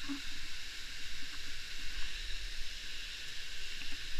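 Steady rushing of flowing water from a river or waterfall, an even hiss with a low rumble underneath.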